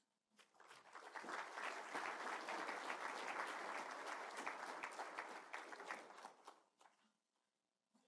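Audience applauding: the clapping builds over the first second or two, holds steady, then dies away about seven seconds in.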